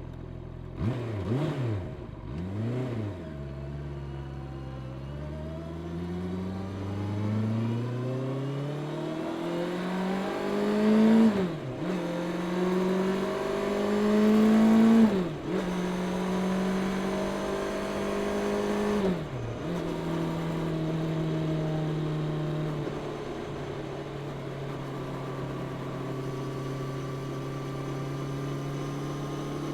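Honda CB650R's inline-four engine through its stock exhaust, blipped twice, then accelerating hard and climbing in revs through the gears. Three upshifts cut the revs sharply about 12, 15 and 19 seconds in, after which it settles into a steady cruise.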